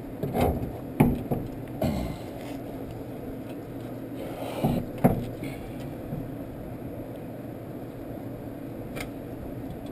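Scattered metal clunks and knocks as a CV axle's outer joint is worked by hand against the front steering knuckle, not yet going in. There are a few single knocks early on and a pair of louder ones about five seconds in, over a steady low hum.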